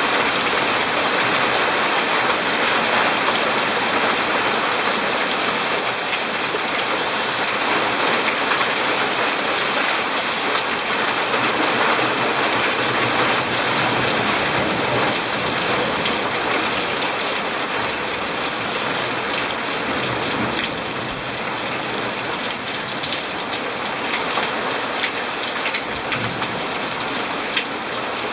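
Heavy rain falling steadily on pavement, lawn and palm leaves. About two-thirds of the way through it eases a little, and separate drop hits stand out.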